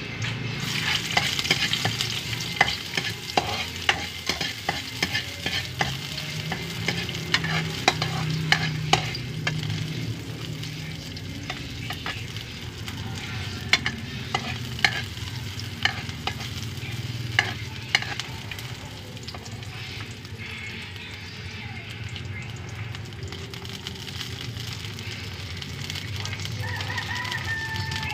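Green beans and carrots sizzling in a wok over a wood fire, with a metal spatula scraping and clinking against the pan as they are stirred. The clinks come thick in the first half and thin out later.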